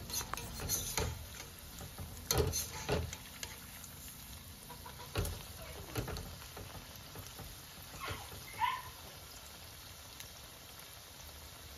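Cabbage pakoras deep-frying in hot oil in a steel kadai, a steady fine crackling sizzle. A perforated metal skimmer taps and scrapes against the pan several times in the first three seconds and again around five to six seconds in. There is a brief high squeak about eight and a half seconds in.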